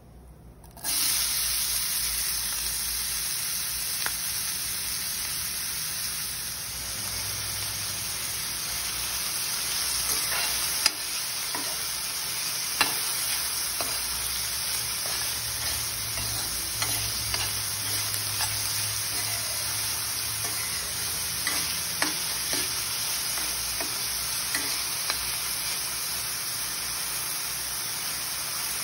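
Chopped onions and green chilies hitting hot oil in a stainless steel pan, starting to sizzle suddenly about a second in. They then fry steadily while being stirred, with occasional sharp clicks of a metal spoon against the pan.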